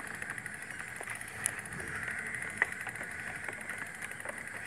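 Steady rushing noise of moving along with a bicycle, picked up by a handheld phone mic, with two short sharp clicks.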